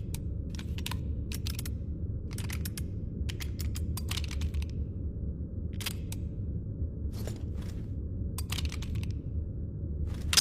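Mechanism of a .357 revolver being handled, giving short sharp metallic clicks in irregular groups of one to several, over a steady low hum.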